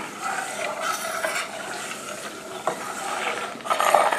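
Metal spoon stirring and scraping against the bottom of a stainless steel pot of simmering ghee, in uneven strokes that are louder about a second in and near the end, over a light sizzle of the bubbling butter. The stirring keeps the separating milk solids from burning on the pot bottom.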